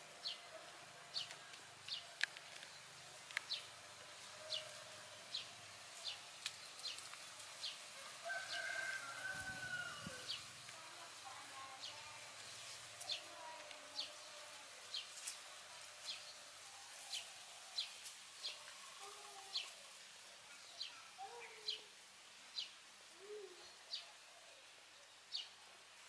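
Faint outdoor bird sounds: short high chirps about once a second, with one longer call about eight to ten seconds in and a few small low calls near the end.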